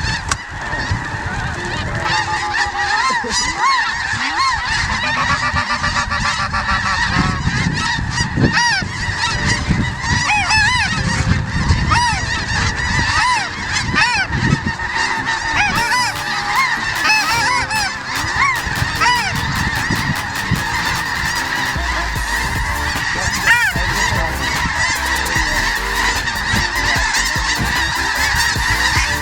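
A large flock of snow geese calling together: a continuous din of many overlapping high honks and yelps.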